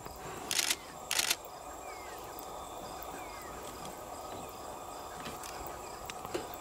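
Two short bursts of camera shutter clicks about half a second apart early on, then steady low background noise with a few faint bird chirps.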